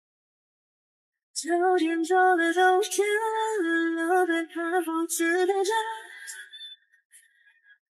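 A solo female voice singing a melody that steps between held notes, starting about a second and a half in and trailing off near the end.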